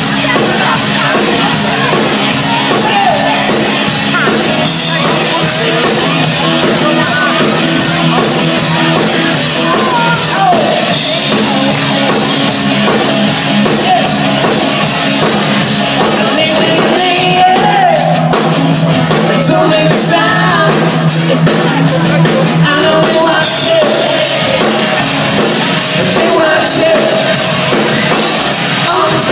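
Live band playing with a singer over a steady drumbeat, with electric guitar, drums and keyboard.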